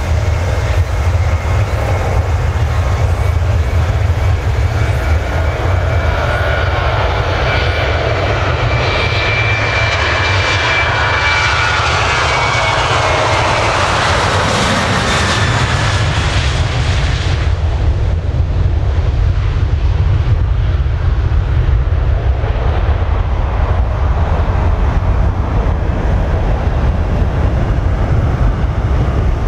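Boeing 737-800's CFM56-7B turbofan engines at takeoff thrust: a steady deep rumble with a high whine that builds as the jet comes closer and is loudest as it passes about halfway through. A few seconds later the whine drops away abruptly, leaving the low rumble as the aircraft climbs away.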